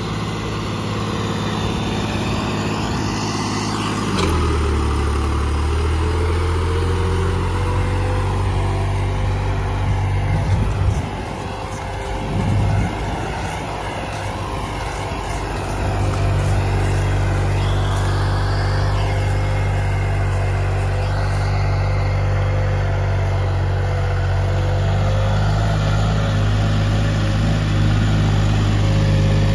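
New Holland 3630 tractor's diesel engine pulling a heavy disc harrow through wet soil, a steady labouring note that shifts in pitch about four seconds in, turns rougher for a couple of seconds around the middle, then settles again.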